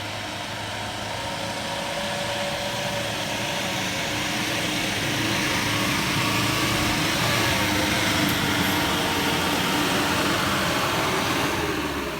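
A vehicle's engine running steadily with road and tyre noise, growing louder toward the middle and easing off near the end.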